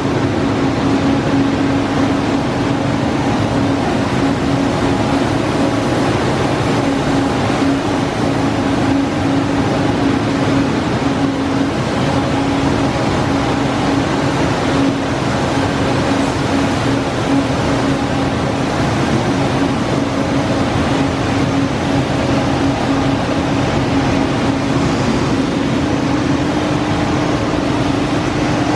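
Manroland Roland 708 eight-colour sheetfed offset press running: a loud, steady mechanical whir with a constant hum that does not change.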